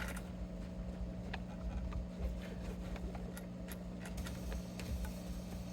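Faint handling sounds, light taps and rubs, as a guitar body is wiped down with polish and a cloth, over a steady low hum.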